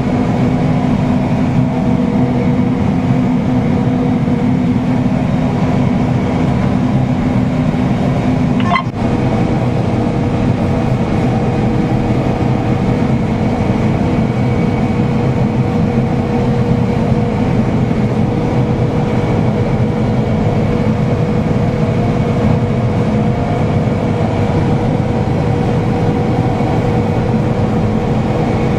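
John Deere combine running steadily while harvesting wheat, heard from inside the cab: an even machinery drone with a steady hum and a faint high whine. It drops out briefly about nine seconds in.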